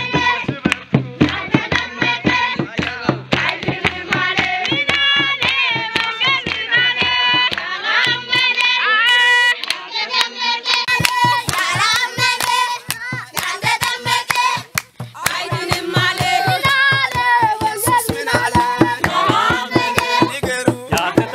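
A group singing together with steady rhythmic hand clapping.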